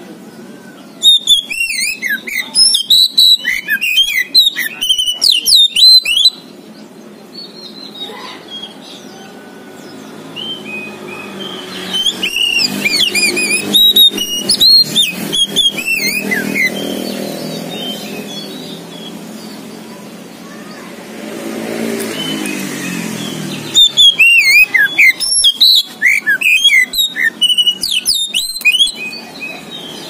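Oriental magpie-robin of the black-bellied 'kacer poci' form singing: loud bouts of rapid, varied whistles and chattering notes, three bouts of several seconds each. Between the bouts a motor vehicle engine hums in the background, rising in pitch just before the last bout.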